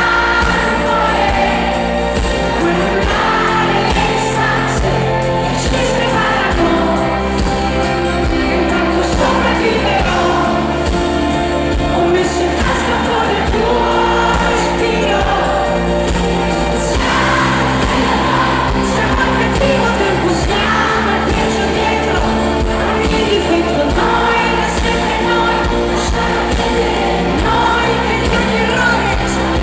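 Pop song with a woman singing lead over full band accompaniment.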